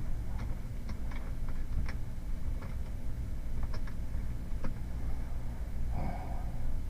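Scattered clicks of computer keyboard keys being pressed, about eight irregular taps, with a short soft noise about six seconds in, over a steady low hum.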